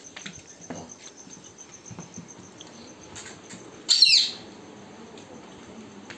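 Rapid, steady high-pitched chirping of a cricket. About four seconds in comes a single loud, high squawk that falls in pitch and lasts about half a second.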